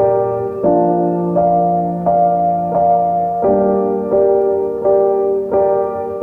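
Background music: a keyboard playing chords that change about every 0.7 seconds in a steady rhythm.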